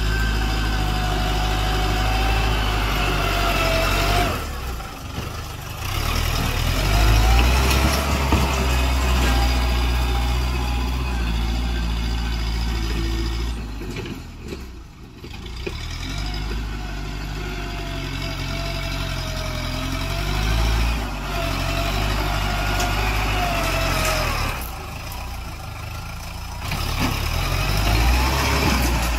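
Farm tractor's diesel engine running under load as it pushes soil with a front blade, its pitch wavering up and down. The sound drops away briefly three times.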